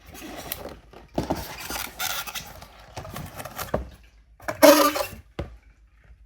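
A cardboard box and its packaging being handled: irregular rustling, scraping and light knocks, with one louder clatter a little under 5 seconds in.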